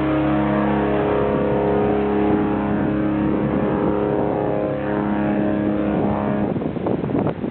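The cruise ship MS Queen Victoria's horn sounding one long, steady blast, which stops about six and a half seconds in; rough, uneven noise follows.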